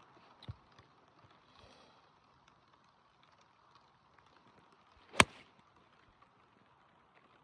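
A golf club strikes a ball once with a sharp crack a little after five seconds in, over the steady light patter of rain. A small dull thump comes about half a second in.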